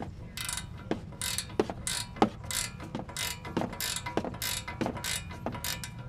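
Ratcheting wrench clicking on the nut of a sway bar end link, worked back and forth in about ten quick strokes, roughly two a second.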